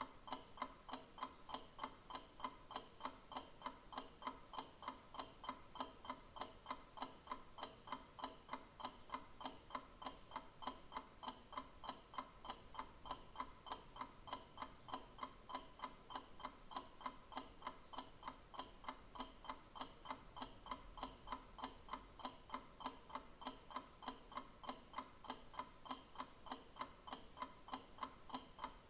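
Clock ticking in a steady, even rhythm, each tick a short, sharp click.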